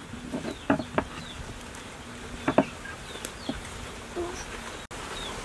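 An insect buzzing steadily through the first half, with three sharp clicks of the metal rod knocking on a wooden chopping board as a fish is handled.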